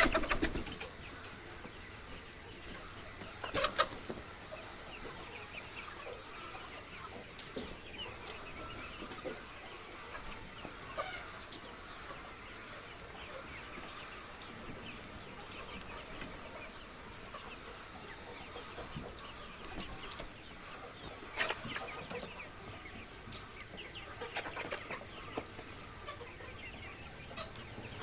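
A flock of laying hens clucking: a steady din of many birds, with a few louder calls standing out now and then.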